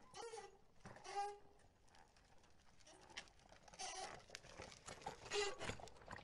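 Faint indoor sports-hall ambience during a basketball game: a few short, scattered noises against quiet background.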